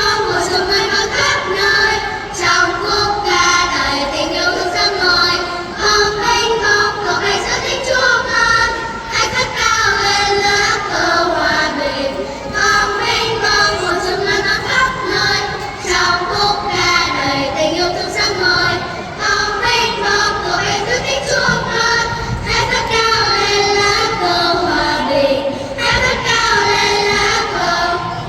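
Children's choir singing together, a continuous melody moving from note to note.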